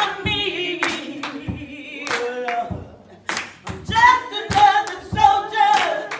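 Song with singing voices and sharp hand claps through it, the lead voice holding wavering notes with vibrato. The singing breaks off briefly about halfway through, then comes back in.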